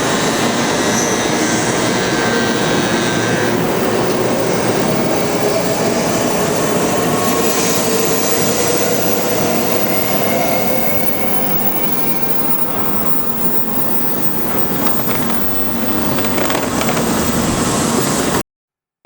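Electric train running through the station, steady rolling and rail noise with motor tones slowly rising in pitch; the sound cuts off abruptly just before the end.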